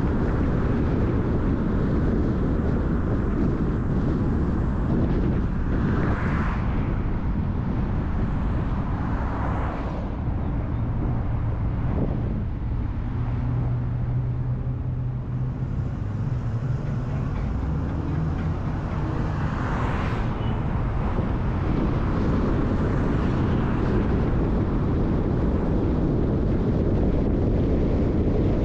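Road noise from a car driving: a steady rush of tyres and wind, with other vehicles swishing past about four times. In the middle the rush eases for several seconds and a low steady engine hum comes through.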